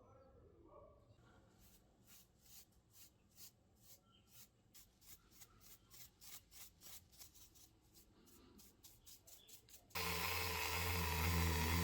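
Short back-and-forth hand rubbing strokes, about three to four a second, getting quicker near the end. About ten seconds in, an electric motor switches on abruptly and runs loudly with a steady hum.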